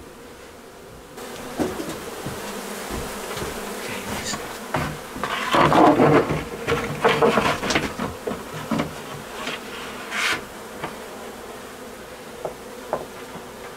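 A swarm of honey bees buzzing steadily, with scattered sharp knocks from handling, busiest about halfway through.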